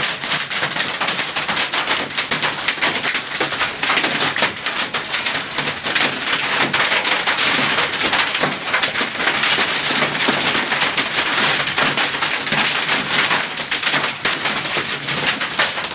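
Heavy hail pelting the vehicle and the ground: a loud, dense, unbroken clatter of countless small hits.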